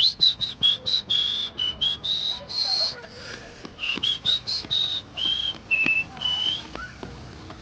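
Whistling: a quick run of short, high, clear notes that step up and down in pitch like a tune, stopping shortly before the end.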